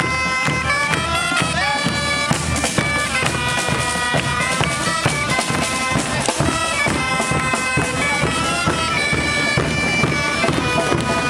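Bagpipes playing a melody that steps from note to note, with regular percussive beats under it.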